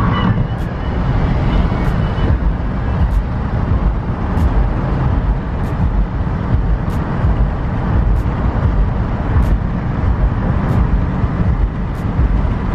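Car driving on the road, heard from inside the cabin: a steady low rumble of engine and tyre noise. A faint tick comes about every second and a quarter throughout.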